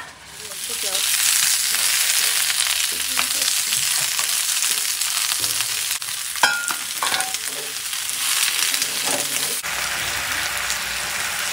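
Chopped onions and green capsicum sizzling in hot oil in a wok. The sizzle swells up about half a second in as the vegetables go in, and a wooden spatula scrapes the pan a few times around six seconds in while they are stir-fried.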